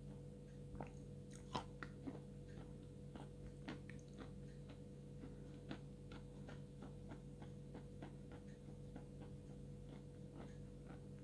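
Close-miked chewing of a dry, crunchy mouthful of edible chalk or clay, with irregular small crunches and clicks, a few louder ones about one and a half to two seconds in.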